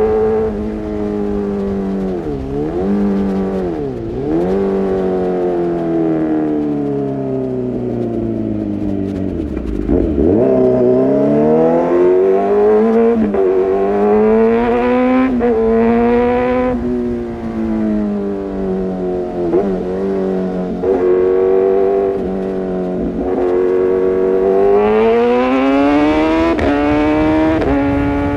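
Kawasaki ZX-6R inline-four engine through an Arrow Pro-Race exhaust, ridden hard. The engine pitch drops steeply several times as the throttle closes, then climbs again in steps as it revs up through the gears.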